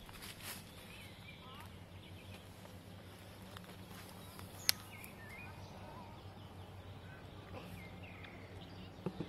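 Outdoor ambience of small birds chirping and calling here and there over a low steady hum, with one sharp high click about halfway through.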